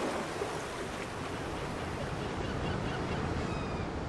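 Steady rushing wash of surf on a shore. A few faint, short, high falling chirps come in from about halfway.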